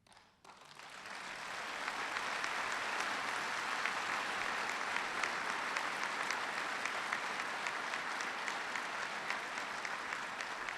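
Large audience applauding: a dense wash of hand claps that swells up over the first second or two and holds steady.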